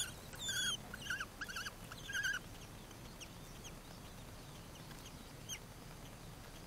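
Common kestrels calling at the nest: a quick run of short, high, arched calls that stops about two and a half seconds in, followed by a few faint, thin downward chirps.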